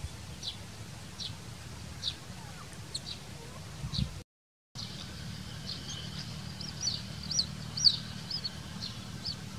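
Baby chick peeping: short, high cheeps, spaced about a second apart at first and coming faster and louder in the second half, over a low steady rumble. The sound drops out completely for a moment a little before the middle.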